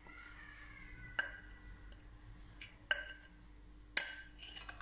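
A metal spoon clinking against glass mixing bowls while flour mixture is spooned from one bowl into another: a few light clinks with a short ring, the sharpest one about four seconds in.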